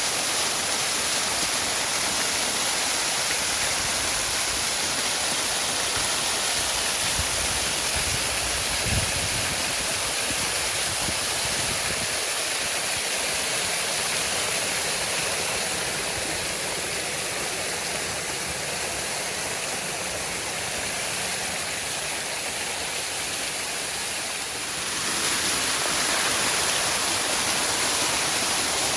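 A waterfall rushing steadily, a dense wash of falling water. It eases a little softer through the middle, then comes back fuller with a sudden step near the end; a brief low thump sounds about a third of the way in.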